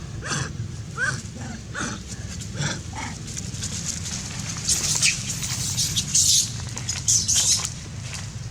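Macaque calls: a few short, faint squeaks in the first three seconds. Several short hissy bursts follow in the second half, over a steady low hum.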